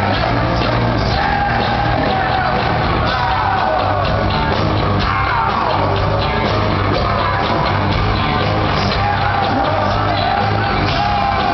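Hard-rock band playing live through a concert PA: distorted guitars, bass and drums, with a voice singing over them, loud and steady throughout.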